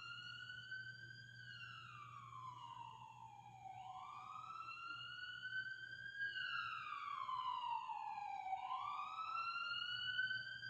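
Ambulance siren wailing: a slow rise and fall in pitch that repeats about every four seconds.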